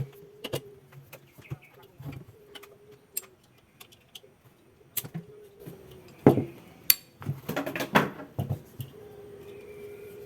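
Small clicks and knocks of metal tools and parts being handled, with a cluster of louder knocks about six to eight seconds in, over a faint hum that comes and goes.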